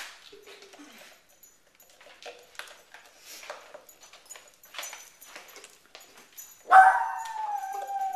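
Dogs licking and nosing peanut butter jars: irregular wet clicks and scrapes. Near the end a dog gives one long, high whine that falls slightly as it fades, the loudest sound here.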